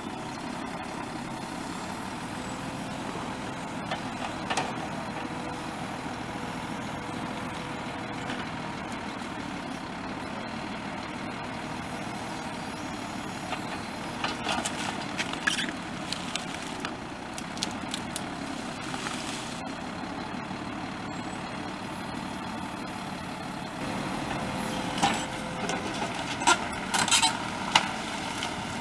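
Truck's diesel engine running steadily to power a hydraulic loader crane. Bursts of cracking and knocking come about halfway through and again near the end, as the grapple grabs and tears up agave plants.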